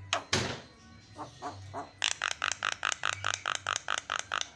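Javan myna singing: scattered harsh and gliding notes, then about halfway through a fast, even run of about a dozen short repeated notes, some five a second.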